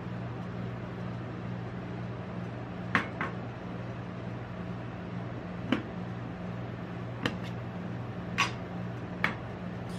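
Metal cocoa tin handled on a steel pan: about six short, sharp taps and clicks, spread out from about three seconds in, over a steady low hum.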